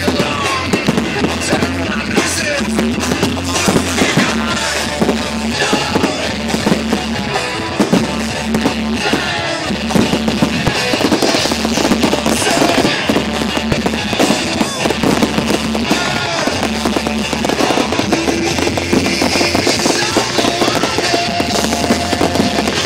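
Loud music with a thudding bass line and a steady beat, with fireworks bursts and crackles mixed in under it.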